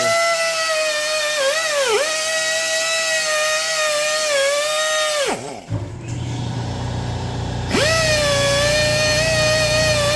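Hand-held power tool spinning a wire wheel: its motor whine spins up, dips in pitch twice as the wheel bites into the rusty, pitted steel of a hydraulic cylinder head cap, winds down about five seconds in, then spins back up about two seconds later and runs steadily.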